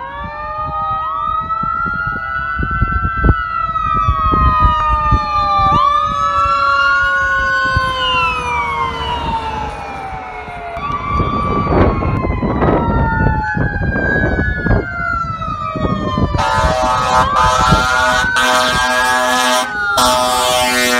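Emergency sirens wailing, rising and falling, from an ambulance and a fire ladder truck responding to a call. The ambulance's siren drops in pitch as it passes, about ten seconds in. In the last few seconds the approaching fire truck sounds several loud horn blasts over its siren.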